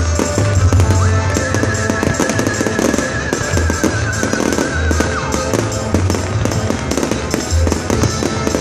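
Aerial fireworks shells bursting in quick succession with loud bangs and crackle. A music soundtrack plays over loudspeakers throughout, with a held high note with a slight waver from about a second in until about five seconds in.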